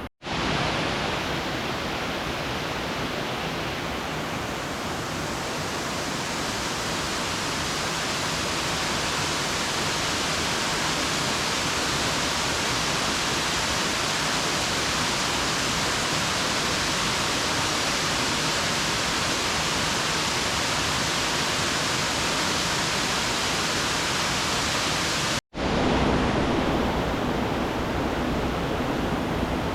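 Rushing river water: a steady, even rush that cuts out for an instant near the start and again near the end, where the footage is cut.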